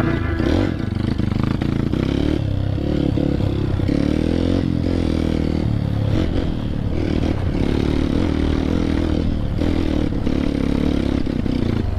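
Dirt bike's single-cylinder engine running under the rider, its revs rising and falling as it is ridden along a rough trail, with rattling from the bike over the bumps.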